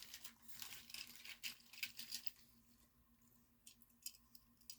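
Faint rustling and light clicks of a bag of diecast toy cars being handled and sorted, busiest in the first two seconds, then a few scattered clicks.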